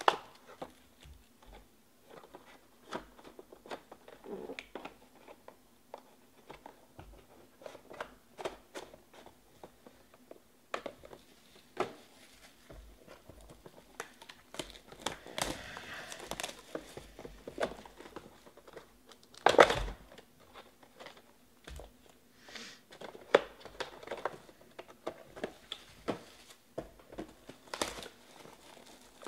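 Plastic wrapping crinkling and tearing as trading card boxes and packs are opened by hand, with scattered clicks and taps of cardboard. One louder rustle comes about two-thirds of the way through.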